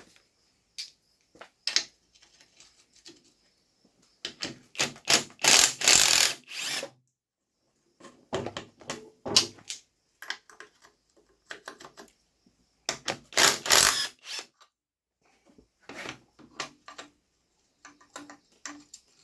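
Hand ratchet wrench clicking in rapid bursts as bolts holding a bracket on a manual transmission case are loosened, with scattered clinks of metal tools and parts. Two longer bursts of ratcheting, about four seconds in and about thirteen seconds in, are the loudest.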